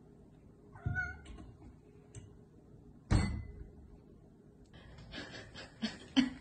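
A cat gives one short meow about a second in. About three seconds in comes a loud thump, the loudest sound here. Light clicks and knocks follow near the end.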